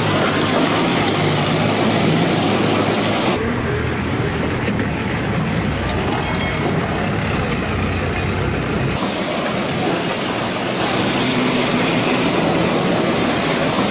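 Tracked armoured vehicle driving on a paved street, its engine and tracks making a loud, steady din. From about three and a half to nine seconds in, the sound turns duller.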